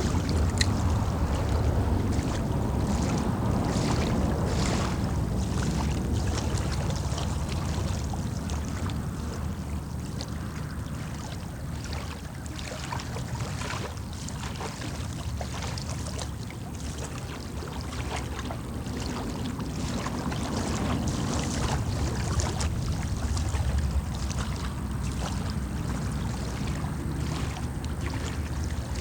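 Wind rumbling on the microphone, swelling and easing, with water lapping and trickling in small splashes throughout.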